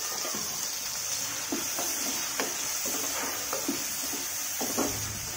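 Pumpkin pieces frying in mustard oil in a pan, giving a steady sizzle, while a spatula stirs in freshly added turmeric, scraping and knocking against the pan several times from about a second and a half in.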